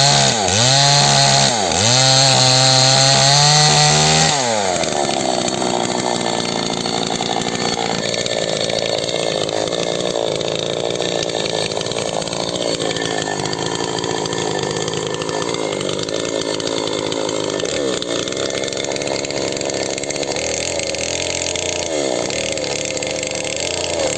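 Small chainsaw engine running hard, its pitch dipping twice, then dropping about four seconds in to a lower, steadier speed for the rest, with brief rev-ups near the end.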